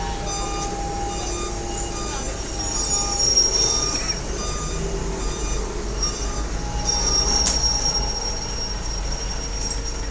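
Machinery running with a steady low hum and a high, thin metallic squeal, and one sharp click about seven and a half seconds in.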